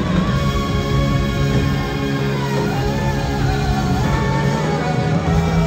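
Live rock band playing, recorded from among the crowd: sustained, slowly moving tones over a steady bass, with a wavering melodic line on top.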